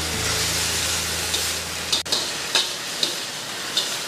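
Fiddlehead ferns sizzling as they are stir-fried in a wok, with a metal spatula scraping and clinking against the wok about five times.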